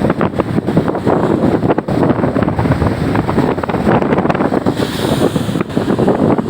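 Wind gusting on the microphone over the rush of rough sea waves.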